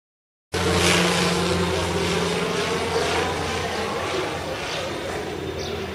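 Propeller floatplane flying overhead: a steady engine drone with a low hum, cutting in suddenly about half a second in and slowly fading.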